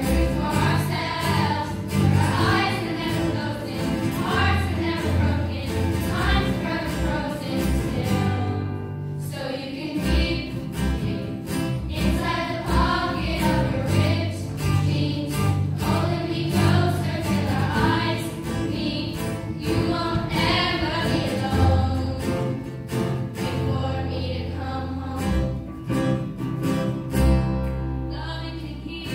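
Large choir of schoolgirls singing a song, accompanied by acoustic guitars and keyboard, with a brief lull about nine seconds in.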